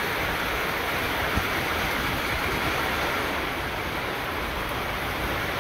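Steady rain falling on a bare dirt yard and trees, an even hiss that holds constant.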